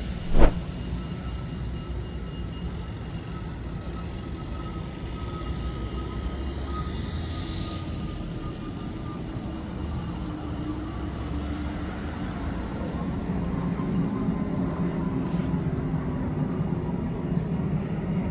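Steady rumble of vehicle traffic on a city street, growing louder in the second half. There is a single sharp knock about half a second in, and a faint high whine that drifts slowly lower.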